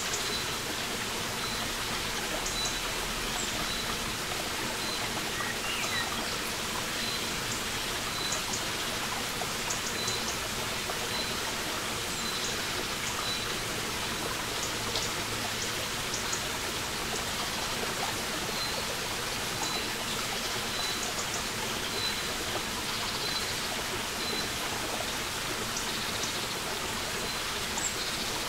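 A small forest brook running and trickling steadily over rocks. Behind it a bird repeats a short high note about once a second.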